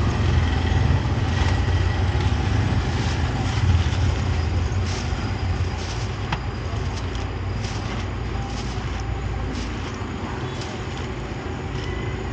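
Busy street-market ambience: a motor vehicle's engine running close by, its low rumble gradually fading, with scattered clinks and clatter over a steady background hubbub.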